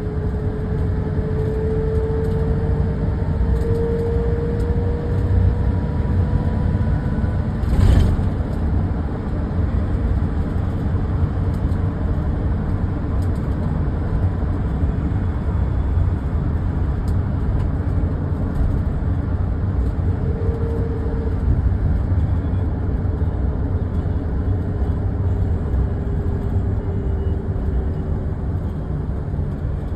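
Road noise inside a moving car: a steady low rumble of tyres and engine, with a faint whine that slowly rises and falls in pitch. There is a single short knock about eight seconds in.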